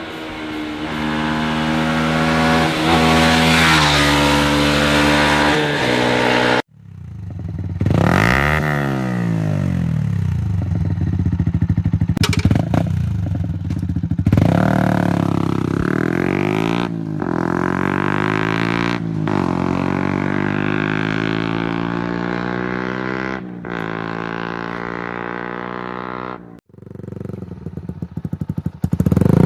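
Yamaha MT-125 single-cylinder four-stroke motorcycle running through aftermarket exhausts, heard in several clips joined by abrupt cuts. The engine revs and accelerates, its pitch climbing and then dropping back several times as it shifts up through the gears. A pitch rise and fall near the start of the second clip sounds like a bike passing by.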